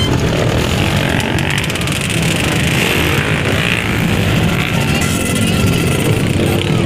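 Many dirt bike engines running and revving together in a packed starting crowd, with music playing over them.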